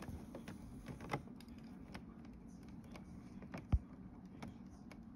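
Faint clicks and taps from a carded action figure's clear plastic blister packaging being handled. About three and a half seconds in there is a single low thump.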